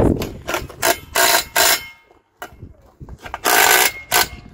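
Socket ratchet clicking in several short bursts as nuts are run down on a tractor wheel, with a pause about two seconds in.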